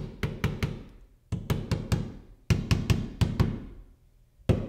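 Claw hammer tapping a dented metal drywall corner bead back into line, rapid light taps about five a second in short runs that fade away, with a brief break about a second in and another near the end.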